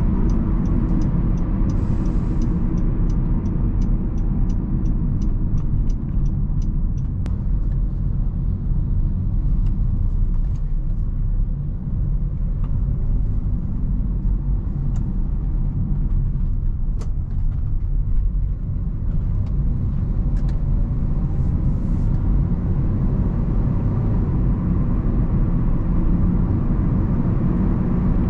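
Honda Civic 1.8 i-VTEC four-cylinder car on the move: a steady low rumble of engine and road noise. A run of regular ticks, about three a second, sounds over the first several seconds, with a few scattered clicks later.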